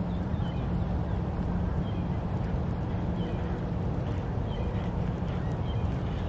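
A distant engine running steadily, a constant low hum over a broad rumble, with faint short high chirps every second or so.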